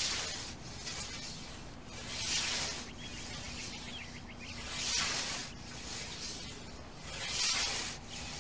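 Scythe blade swishing through lawn grass in steady mowing strokes, four hissing cuts about two and a half seconds apart.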